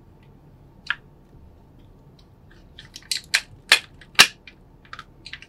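Sharp clicks and taps from the joints and armour pieces of a Hot Toys sixth-scale die-cast War Machine Mark IV action figure as it is handled and posed. There is one click about a second in, then a quick run of clicks, the loudest three about half a second apart around the middle, and a few faint ones near the end.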